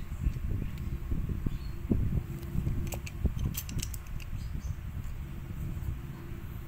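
Utility knife blade cutting and scraping masking tape off a copper-clad PCB blank, with low rubbing and handling knocks and a few short sharp ticks about three seconds in.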